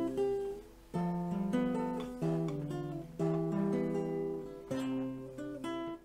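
Slow instrumental music on acoustic guitar: plucked chords left to ring and fade, a new chord about once a second.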